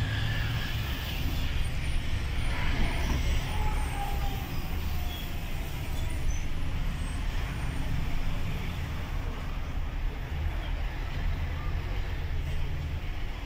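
Truck engine and road noise heard from inside the moving cab: a steady low drone with tyre and traffic hiss over it.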